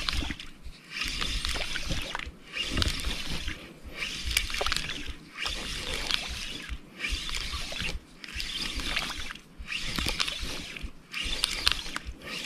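Small spinning reel being cranked in a steady jigging rhythm: bursts of reel whir, each about a second long, repeating about every second and a half.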